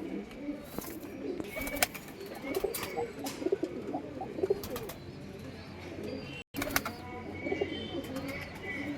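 A flock of domestic pigeons, Punjabi Malwai breed, cooing continuously in low warbling calls, with several sharp clicks mixed in.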